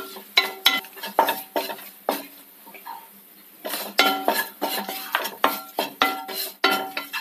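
Wooden spatula stirring and scraping in a dark non-stick kadai, knocking against the pan two or three times a second, each knock with a short ring, with a quieter spell in the middle. Dry spice powders are being sautéed in a little oil on low heat, so there is hardly any sizzle.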